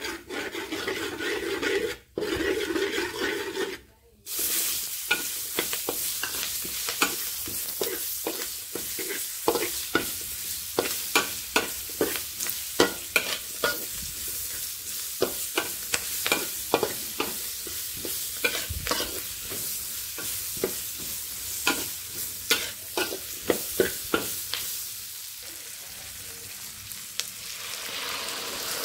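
Curry paste and onion wedges sizzling in oil in a metal wok, with a metal spatula scraping and clicking against the wok as they are stir-fried. Near the end a sauce is poured in and the clicking gives way to a smoother, even sizzle.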